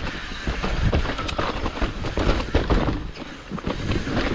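Hardtail mountain bike riding down a rough trail: tyres rolling over dirt and bumps with frequent knocks and rattles over a steady low rumble.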